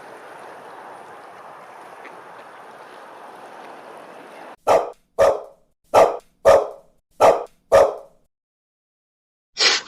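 A dog barking six times in three quick pairs, after a few seconds of steady low hiss.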